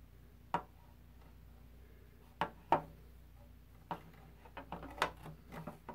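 Scattered light clicks and taps of a metal dial-and-speaker panel being fitted against a Bakelite radio cabinet, its studs being worked through the cabinet's holes: a few single clicks, then a quick run of smaller ones near the end.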